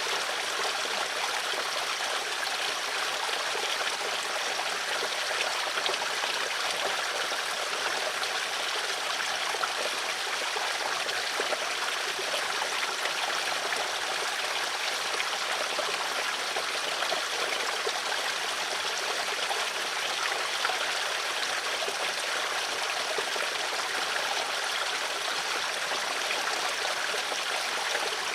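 Flowing water running steadily, a continuous bright rushing and trickling without breaks and with little deep rumble.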